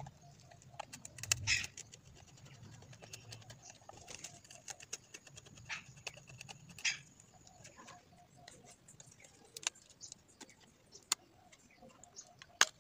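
Handling noise from a plastic digital multimeter case: scattered light clicks and scrapes as it is turned over and a small screwdriver works the screws in its back, with one sharper click near the end.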